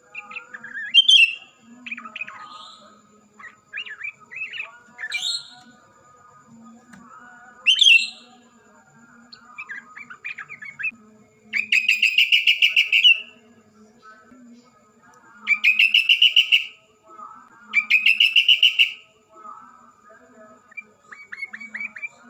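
Caged yellow-vented bulbul and sooty-headed bulbul singing vigorously: short whistled notes and chirps, then three loud rattling trills of a second or so each in the second half.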